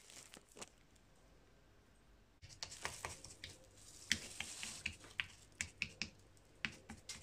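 A spoon pressing and patting chopped nuts into soft besan barfi in a glass baking dish: a run of irregular light clicks and taps, starting a couple of seconds in. Before that, a few faint ticks as chopped nuts are sprinkled on.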